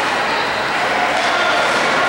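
Crowd noise in an ice arena: a steady din of spectators' voices mixed with the general noise of play on the ice.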